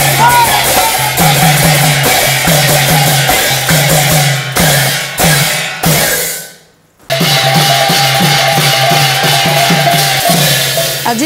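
Instrumental music with drums and percussion playing a fast, even rhythm over a steady low held note. The music stops briefly about six and a half seconds in, then starts again.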